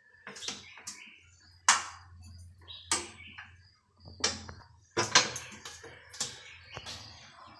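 A string of irregular knocks and clicks from the wooden window frame and window bars being handled, with a faint low hum underneath.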